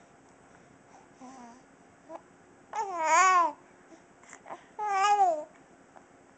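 A six-and-a-half-week-old baby cooing: a soft short coo, then two loud drawn-out coos about three and five seconds in, each rising and then falling in pitch. Brief sharp hiccups come in between.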